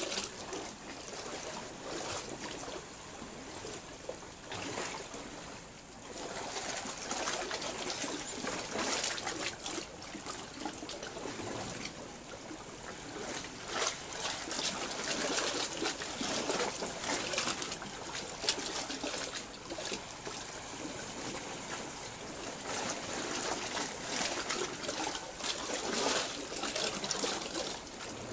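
Seawater lapping and trickling among rocks in a narrow channel, swelling and easing every few seconds with small splashes.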